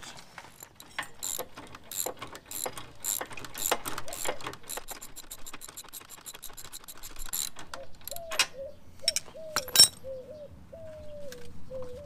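Ratchet wrench clicking rapidly as a bolt and nut are run up to mount a retractable trailer tie-down. After about seven seconds the strokes slow, and a short falling squeak repeats with them.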